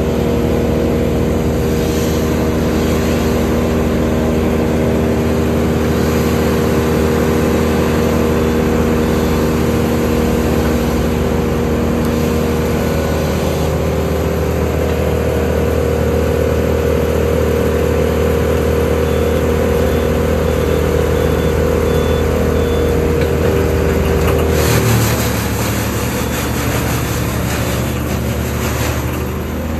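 Steady engine drone from a Schäffer 2428 mini loader working close by with its grapple, and a Bandit brush chipper running behind it. About 25 seconds in the engine note changes and a rougher, noisier sound comes in for a few seconds.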